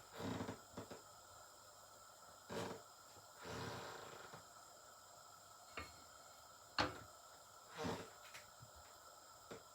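Occasional kitchen handling sounds: a few short knocks and clicks and a brief scrape, with the sharpest click about two-thirds of the way in.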